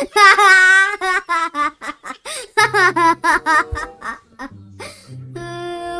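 High-pitched laughter: one long wavering peal, then short repeated bursts, giving way in the last seconds to music with steady held notes.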